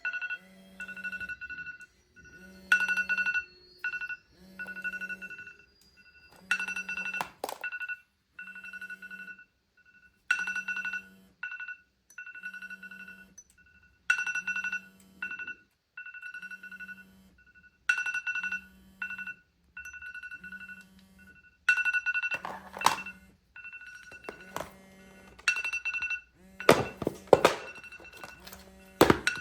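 Apple device alarms ringing: short electronic beeps of one steady pitch, repeating in a cycle of about four seconds, with a low buzz under each beep. Sharp knocks and taps sound now and then, loudest and most frequent near the end.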